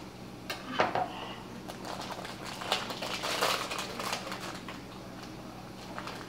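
Plastic package of sliced Swiss cheese crinkling and rustling as it is cut and pulled open by hand, with a few sharp clicks and knocks, the loudest about a second in.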